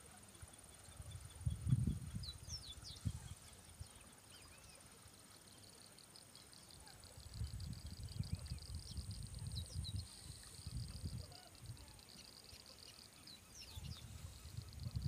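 Gusts of wind rumbling on the microphone, strongest about two seconds in and again from about seven to twelve seconds, over birds chirping and a fast high trill in the background.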